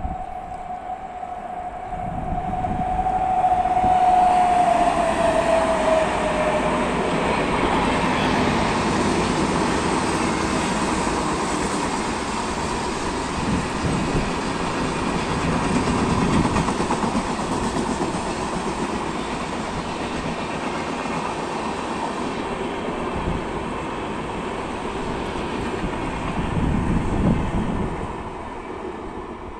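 Paschim Express passenger train passing at speed. A long horn note drops in pitch as the locomotive goes by, then the coaches rush past with wheel clatter for over twenty seconds and fade near the end.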